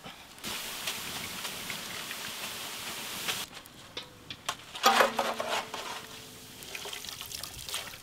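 Sev dough sizzling as it drops into hot oil for frying. About five seconds in, a steel strainer strikes the metal frying vessel with a ringing clang, followed by light scraping and taps as the fried strands are lifted from the oil.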